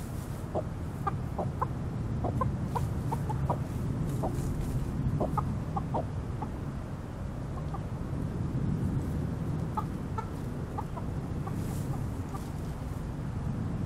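Backyard hens clucking in short, scattered notes, in two runs with a lull of a couple of seconds in the middle.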